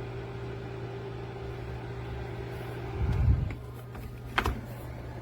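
Ceramic space heater's fan running with a steady hum. About three seconds in comes a dull low thump, then a sharp click about a second later.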